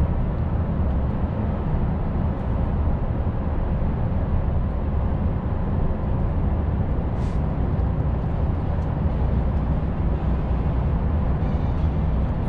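Volvo FH460 LNG semitrailer truck heard from inside the cab, its engine running steadily at cruise under a continuous low drone of tyre and road noise.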